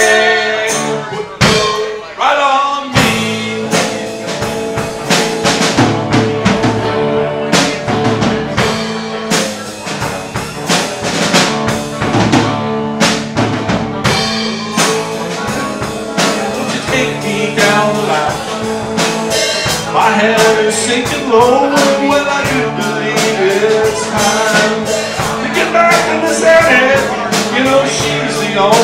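Live band playing amplified rock: electric guitars over a drum kit, thinning out briefly about two seconds in before the full band comes back in.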